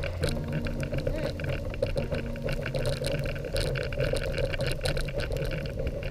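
Dog sled runners swishing steadily over fresh snow as the sled is pulled, with irregular small jolts, over faint background music.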